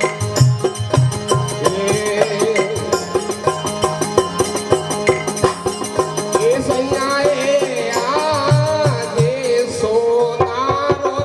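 Live Rajasthani folk bhajan music: a dholak drum keeping a quick, steady beat under a melody, with a wavering melodic line coming to the fore about six seconds in.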